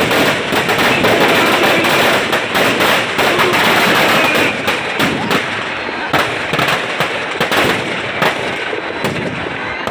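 Eco-friendly firecrackers packed inside a burning Ravan effigy going off in a dense, rapid crackle, thinning after about five seconds into scattered single bangs.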